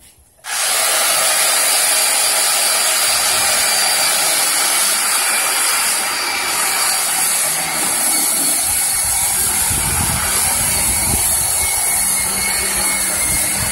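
Electric orbital sander starting up about half a second in and running steadily as it sands the pine sofa frame, a constant motor hum with a faint whine and a rougher rumble as the pad is pressed against the wood.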